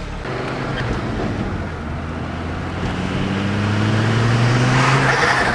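Ford Focus XR5's turbocharged five-cylinder engine pulling the car along, its note climbing steadily as it accelerates. A hiss of air grows louder toward the end.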